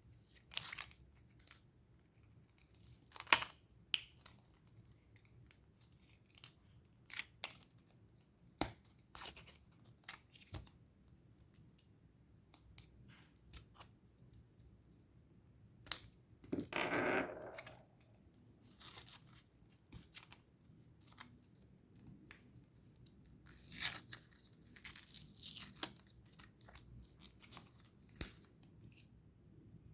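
Small sharp clicks, taps and short scrapes of tools and small parts being handled while a Casio BGA-152 wristwatch is worked on, with one longer tearing-like rustle about seventeen seconds in.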